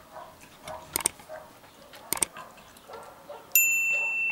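A metal spoon clicks twice against a cast-iron frying pan as it scoops into a fried egg, then a steady, high electronic beep sounds for about a second near the end.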